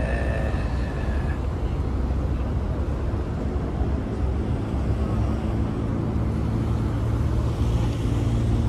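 Steady low rumble of motor vehicles, traffic and running engines. From about halfway through, an engine hum rises a little above the rumble.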